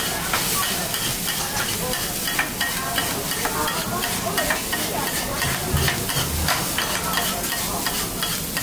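Food sizzling as it is stir-fried, with metal spatulas clacking and scraping against the hot iron pan in quick, irregular strokes.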